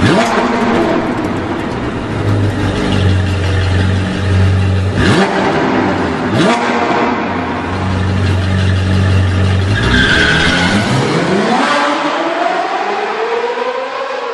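Car engine running with a steady note, two quick sweeping whooshes about five and six and a half seconds in, then the engine revving up in a long rising glide from about ten seconds in, fading away at the end.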